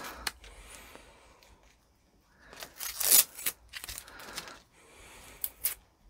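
Tape being peeled off the rim of a freshly painted flywheel and crumpled, in several short crackly bursts with quiet gaps, the loudest about three seconds in.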